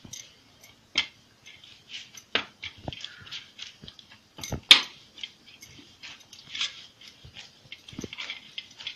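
Stiff horse gram flour dough kneaded by hand in a steel plate: irregular squelches, slaps and light knocks against the metal. The loudest is a sharp slap about four and a half seconds in.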